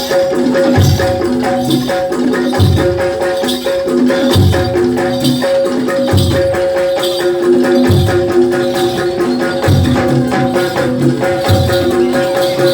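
Live jaranan gamelan music: low drum strokes repeat about every second and three-quarters under rapid metallic rattling percussion and a steady held melody line.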